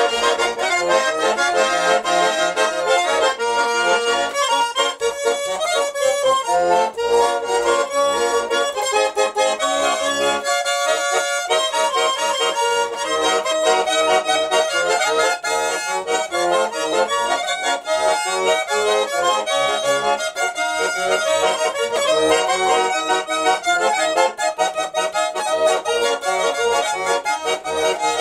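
Garmon, a Russian button accordion, being played: a tune of quick melody notes over bass and chord accompaniment, the bass dropping out for a moment about ten seconds in.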